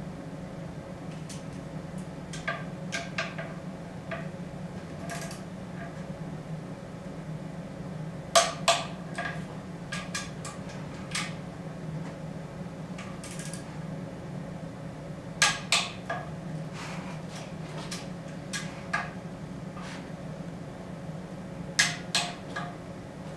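Sharp metal clicks and clinks from a hand wrench and socket tightening bolts on an aluminium cylinder head. The loudest come in close pairs, three times about six or seven seconds apart, with smaller clicks between them, over a steady low hum.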